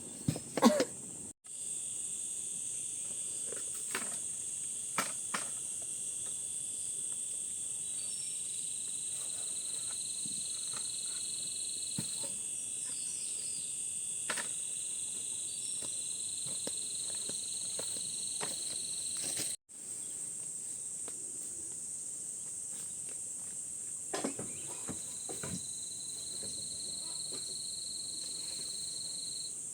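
Steady high-pitched insect chorus, with a second, lower insect trill that comes and goes three times. The sound drops out completely twice, briefly, and there are a few faint knocks.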